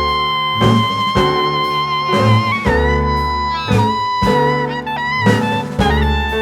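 Instrumental music: held melody notes over a repeating bass line and a steady beat.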